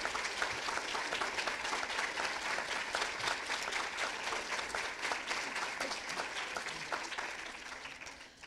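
Audience applauding, a dense patter of many hands clapping that thins and fades out near the end.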